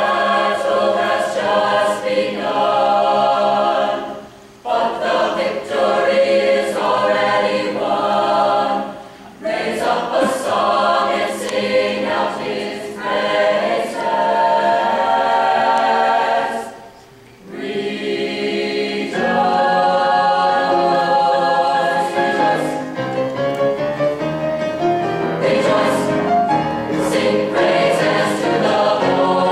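Mixed-voice high school choir singing a cappella, men's and women's voices in harmony with no instruments. The singing goes in phrases, with three brief pauses for breath between them.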